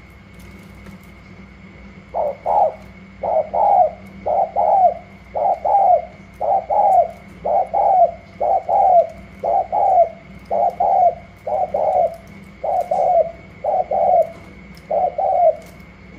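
Caged spotted dove cooing: a run of about thirteen short two-part coos, roughly one a second, starting about two seconds in. These are bowing coos given in a sparring display toward a rival dove in the next cage.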